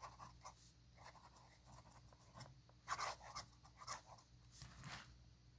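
Faint scratching of a Waterman's 94 fountain pen nib writing on paper, a string of short strokes with the clearest about three and four seconds in.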